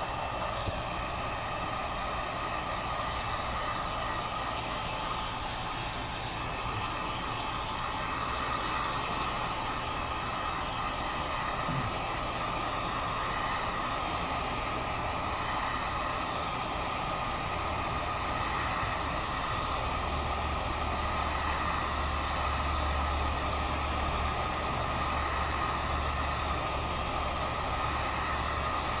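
Heat gun blowing steadily, a constant whooshing hiss with a faint whine, used to warm the glass and soften its adhesive.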